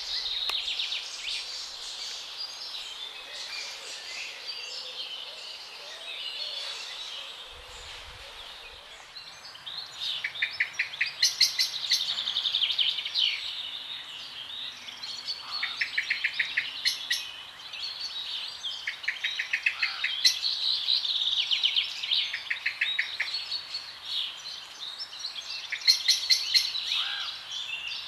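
A chorus of songbirds singing, several overlapping; from about ten seconds in, loud rapid trills recur every few seconds.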